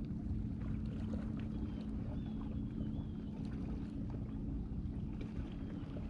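Steady low lakeside rumble of wind and water with a constant low hum under it, and a few faint, short, high chirps and light ticks scattered through it.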